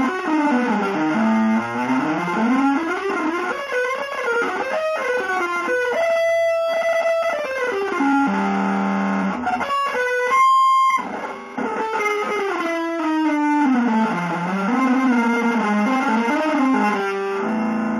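Electric guitar through effects playing a single winding melodic line of fast gliding runs, with two long held notes around the middle.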